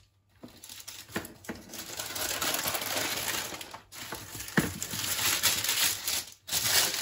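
Baking paper rustling and crinkling as it is handled, pulled and folded by hand, with a few sharp clicks among it.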